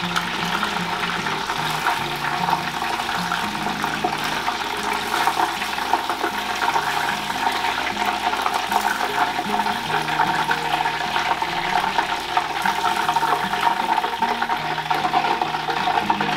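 Hot oil in a small deep fryer sizzling steadily with dense crackling, as potato-starch-coated chicken thighs come out after the first three minutes of a two-stage fry at about 170 °C.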